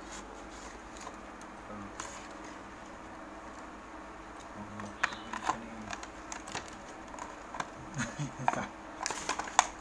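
Small plastic parts and packaging being handled while a Bluetooth receiver kit is unboxed: scattered clicks and light taps, busier near the end, with a few short low murmurs.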